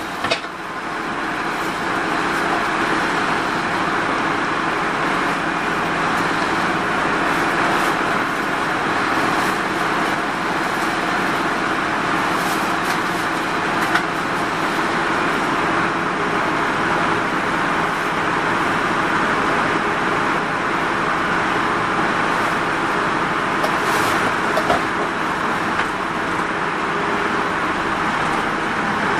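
Mitsubishi Fuso Rosa minibus's four-cylinder diesel engine idling steadily, a constant even hum with no change in pitch.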